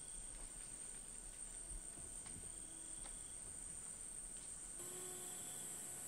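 Rainforest insects keeping up a steady, high-pitched drone, with a few faint short tones beneath it. The insect sound shifts and grows a little stronger about five seconds in.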